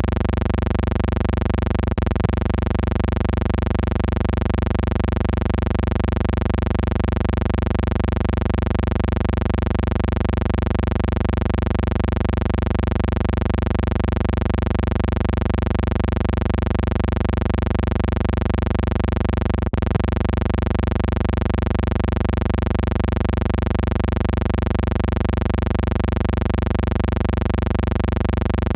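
Steady, unchanging hum with a stack of even overtones: noise added in the transfer of a silent film, with two brief clicks, one about two seconds in and one just before the twenty-second mark.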